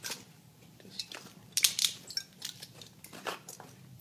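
An aluminium corner piece and extrusion being pushed and fitted onto the edge of an aluminium honeycomb panel: a string of short, sharp metal clicks, the two loudest close together about a second and a half in.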